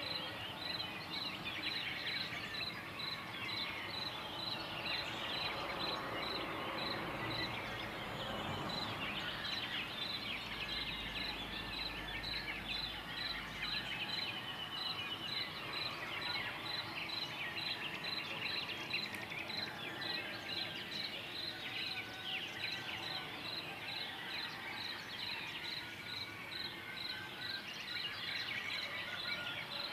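Dawn chorus of songbirds, many short chirps and song phrases overlapping, with a high chirp repeating steadily about twice a second.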